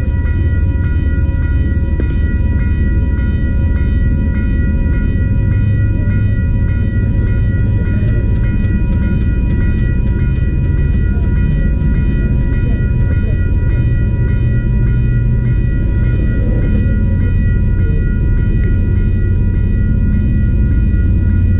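CPKC freight train of autorack cars passing close by: a loud, steady low rumble with several steady high-pitched tones held over it. A run of regular clicks from the wheels comes around the middle.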